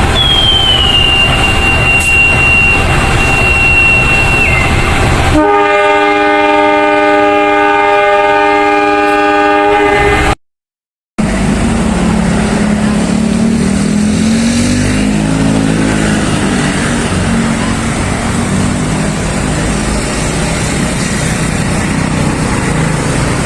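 Diesel locomotive (KAI CC 201) engine running, with a high squeal that glides down and holds for a few seconds. Then a chord-like locomotive horn sounds for about five seconds. After a short silent break, the engine rises in revs and eases back as it pulls.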